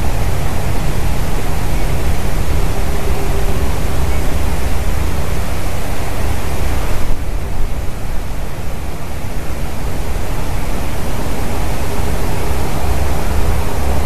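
Loud, steady wind noise: a low rumble buffeting the microphone under a rushing hiss. About halfway through, the hiss thins suddenly, then builds back.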